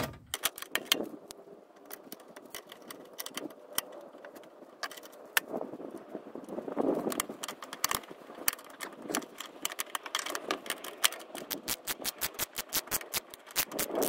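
Hand ratchet clicking as it drives screws into a lawnmower engine's plastic shroud: scattered clicks at first, then a fast, even run of clicks in the last few seconds.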